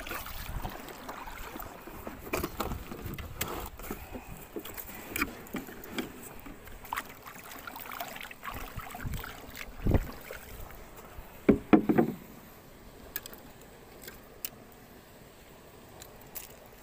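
Knocks and clatter of gear being handled in a small boat, over a steady low rush of water. The loudest knocks come about ten seconds in and in a cluster near twelve seconds, after which it goes quieter.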